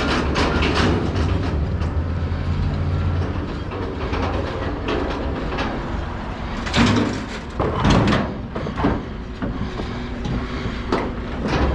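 A vehicle engine idling with a low hum, under repeated clanks and knocks of heavy scrap being handled, the loudest bangs about two-thirds of the way through.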